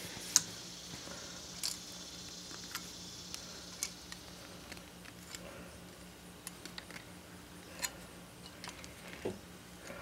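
Faint, scattered clicks and ticks of steel pliers and stiff bare 12-gauge copper wire as one wire is wrapped around another, over a steady low hum.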